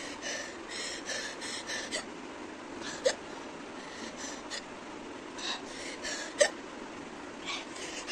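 A woman's hiccups: two sharp, loud hics about three seconds apart, with quick breathy sounds in between. The hiccups come on after she eats two raw chillies; she says spicy food makes her hiccup much more.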